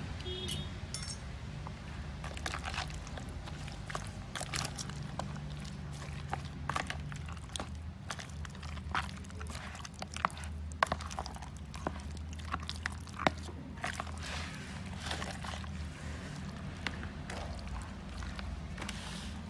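Raw chicken feet being mixed by hand in a plastic bowl with a wet, sticky coating: irregular squishing and clicking, with a few sharper clacks about halfway through. A steady low hum runs underneath.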